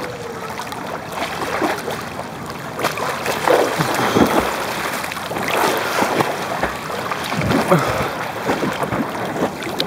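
Swimming-pool water lapping and gurgling against a camera held at the surface, with irregular splashes from a swimmer's strokes.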